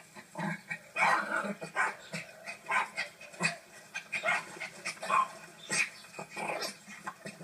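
Small fluffy white dog barking and yipping in short sounds that come in quick, irregular succession.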